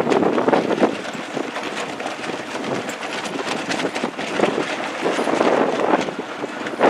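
Wind buffeting the microphone, over the rushing and splashing of choppy water.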